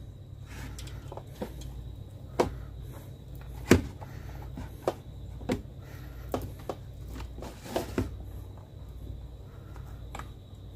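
Irregular soft knocks and clicks of a thin plastic container shifting on the counter as freshly made butter is dropped in and pressed down by hand, over a low steady hum. The loudest knocks come a few seconds in.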